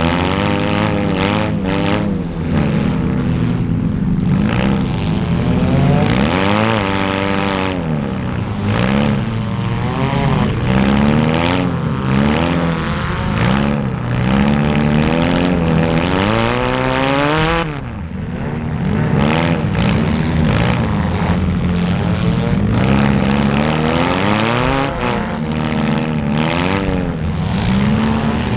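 Several small cars' engines revving hard together during a demolition derby heat, their pitches swooping up and down over and over as the drivers accelerate and back off. The engines overlap continuously and loudly, with a dip about two-thirds of the way through.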